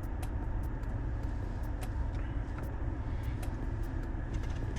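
Car engine idling, heard from inside the cabin: a steady low rumble with a faint steady hum over it and a few light scattered clicks.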